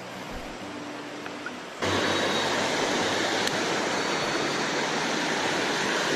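Shallow rainforest stream running over rocks: a faint steady rush at first, then, after about two seconds, a much louder, even rushing of water from a riffle.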